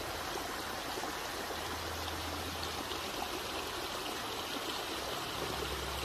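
Shallow rocky creek running over stones, a steady rush of water.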